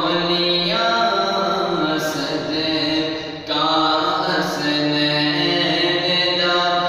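A male voice singing a naat, an Urdu devotional song in praise of the Prophet, unaccompanied, in long held melodic phrases. There is a short break for breath about three and a half seconds in.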